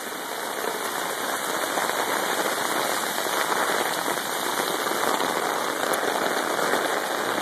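Heavy rain pouring down onto standing floodwater: a dense, even crackling patter of drops hitting the water. It grows slightly louder over the first couple of seconds, then holds steady.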